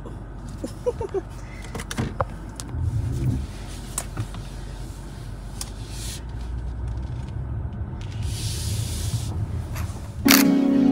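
Low, steady cabin rumble of a BMW X6 moving slowly in reverse, with a few light clicks inside the car. Music comes in loudly near the end.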